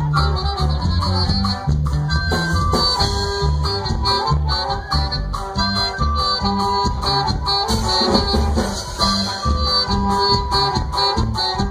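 Norteño music: an accordion-like reed melody over a bass line with a steady beat.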